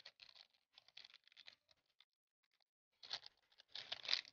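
Plastic wrapping and a small cardboard box crinkling and tearing as a new ball bearing is unpacked by hand. Faint scattered rustles at first, with louder crinkling bunches in the last second or so.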